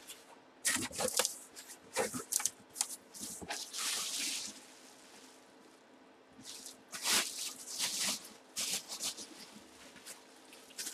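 Clear plastic bag around a football helmet crinkling and rustling in irregular bursts as it is handled, with a short lull about halfway through.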